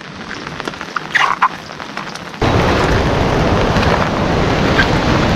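Rain falling: a moderate patter with a few short sharp sounds, then about two and a half seconds in it jumps suddenly to a loud, dense downpour that stays steady.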